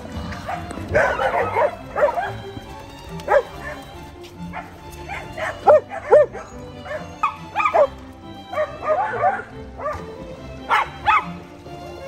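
Dogs giving many short, high-pitched cries that bend up and down while tugging at a toy in play, over background music.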